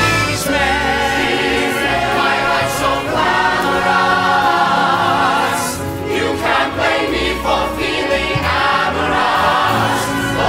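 Stage-musical number: several voices singing together with vibrato over an orchestra.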